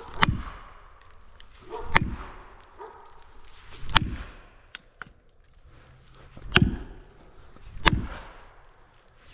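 Five heavy hand-struck blows on wood, roughly two seconds apart, each a sharp crack with a low thud.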